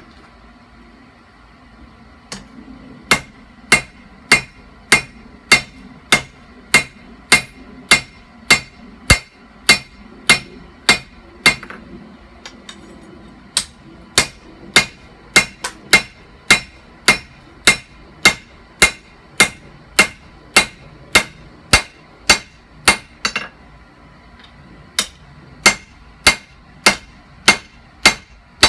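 Hand hammer striking a red-hot leaf-spring steel knife blank on an anvil to forge in the bevel: a steady run of sharp metal-on-metal blows, a little under two a second. The blows stop briefly near the end, then start again.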